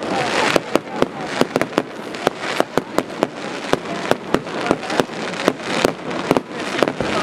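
Fireworks display: aerial shells bursting in a rapid, irregular string of sharp bangs, several a second, over a continuous rushing noise.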